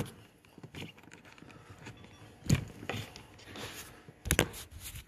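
Handling knocks from a phone set down while it records: a knock at the start, faint rustling and small clicks, then two louder knocks, one about halfway through and one near the end.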